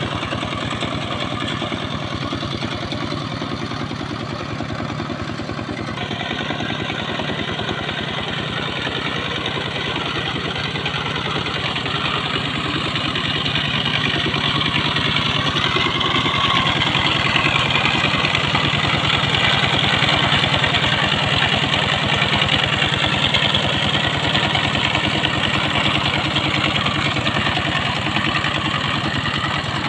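Single-cylinder diesel engine of a two-wheel power tiller running steadily under load as its cage wheels puddle a flooded paddy field. The engine grows louder partway through, peaking in the middle as the machine comes closer.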